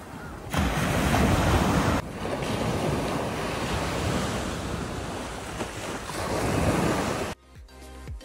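Surf breaking and washing up on a sandy beach, a steady rush of water with wind buffeting the microphone; it is louder for the first couple of seconds and cuts off suddenly near the end.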